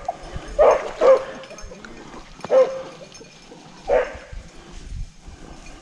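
A rabbit dog barking: four short barks at uneven spacing, two close together near the start and the last about four seconds in.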